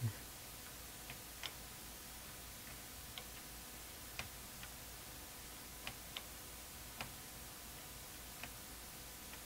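Faint, irregular button clicks, about ten of them spaced unevenly, with a low thump at the very start, over a low steady hum.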